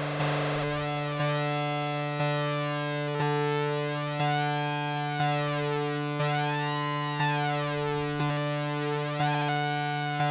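Audiotool Pulverisateur software synthesizer playing one low sawtooth note, restruck about once a second, with oscillator sync on. The synced second oscillator's pitch is swept by an LFO, so the bright overtones rise and fall in slow waves over the steady note.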